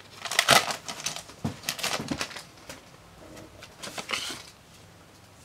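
Foil Pokémon booster-pack wrapper crinkling as the trading cards are pulled out and handled, in short irregular rustles that are busiest in the first two seconds, with a smaller flurry about four seconds in.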